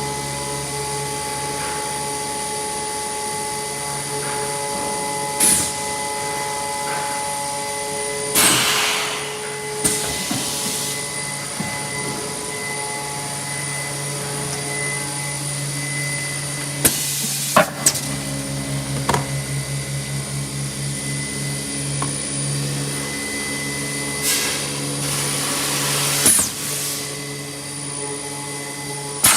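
Automatic tray sealing machine running a skin-pack cycle: a steady vacuum-pump hum, broken several times by sharp rushes of air and clicks as the pneumatic sealing tool works and vents. The longest rush comes about eight seconds in, and a fluttering pulse runs through the middle.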